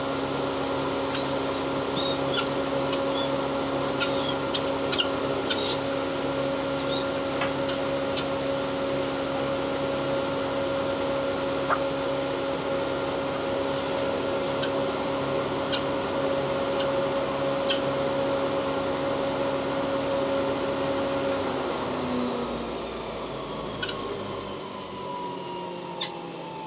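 Electric posho mill (a motor-driven hammer mill) grinding maize into flour, running with a steady hum and scattered sharp ticks. About 22 seconds in, it winds down, its pitch falling.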